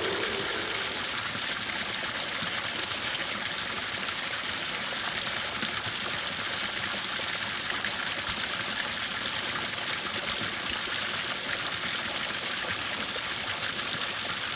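A steady, even rushing hiss with no pitch or beat, much like running water, holding the same level throughout.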